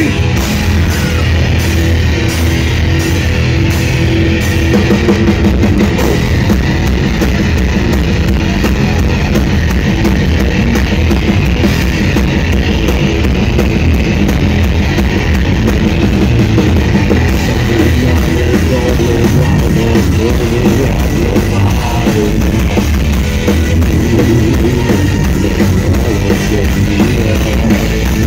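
Heavy metal band playing live: distorted electric guitars and a drum kit, loud and dense without a break.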